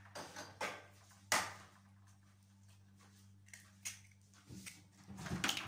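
An egg being cracked open against a ceramic mixing bowl: a few sharp clicks and taps of eggshell, then near the end a short cluster of cracking and shell-breaking sounds as the next egg is broken into the bowl. A faint steady hum runs underneath.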